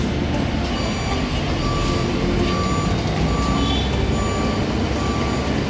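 Steady low vehicle or traffic rumble with a string of short, repeated electronic beeps.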